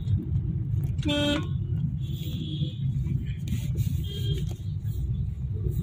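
Steady low rumble of city road traffic among motorcycles, scooters and cars, with a vehicle horn honking once briefly about a second in and fainter high toots a little later.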